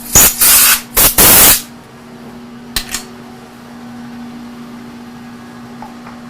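Three loud blasts from a compressed-air blow gun in the first second and a half, clearing chips off the freshly machined chuck mounting plate, followed by a brief clatter around three seconds in. A steady low machine-shop hum runs underneath.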